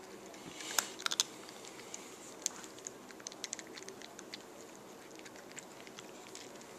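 A cat chewing dry kibble: a string of sharp little crunches, the loudest few about a second in, then scattered, quieter crunches.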